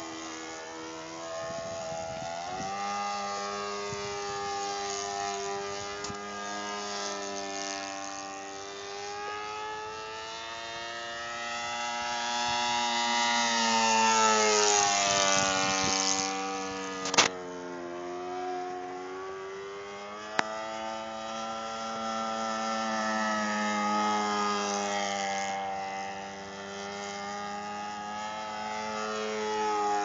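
Saito 82 Golden Knight four-stroke glow engine of a flying model Super Decathlon running steadily, its note swelling and fading and sliding up and down in pitch as the plane passes and maneuvers overhead. A sharp click comes about 17 seconds in, with a fainter one a few seconds later.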